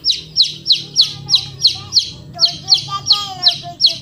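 A small bird calling a sharp, high, falling chirp over and over in a steady rhythm, about three to four chirps a second.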